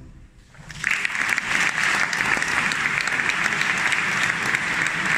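Audience applause, starting just under a second in and continuing steadily, right after the faint tail of a male choir's final held chord dies away.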